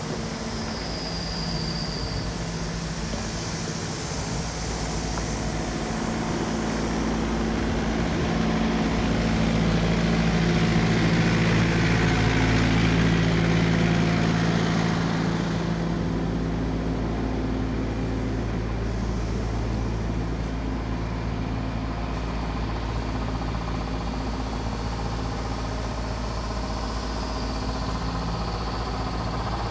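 A motor vehicle engine running steadily, growing louder for several seconds in the middle and then settling back to a steady level.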